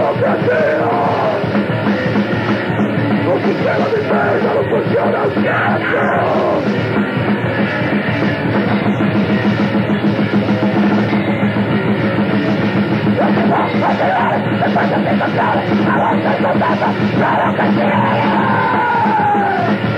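Grindcore played by a full band: dense distorted guitars and drums, loud and unbroken, on a dull, muffled recording.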